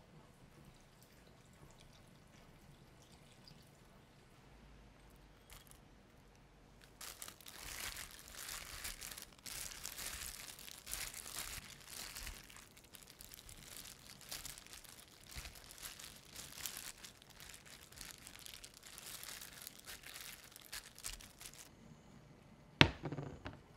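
Crinkling, crackling handling noise that starts about seven seconds in and runs for some fifteen seconds, followed near the end by one sharp knock, the loudest sound.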